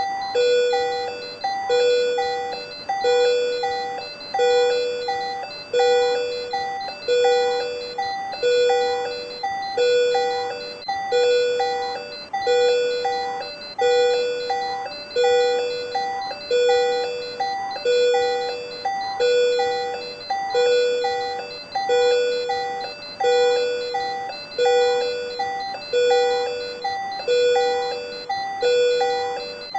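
Patient monitor alarm sounding for supraventricular tachycardia (SVT): an electronic tone pattern repeating steadily a little less than once a second.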